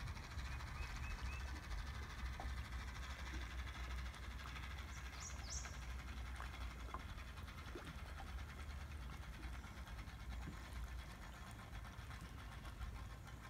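Faint outdoor ambience: a low, steady rumble with a few faint bird chirps, once about a second in and again about five seconds in.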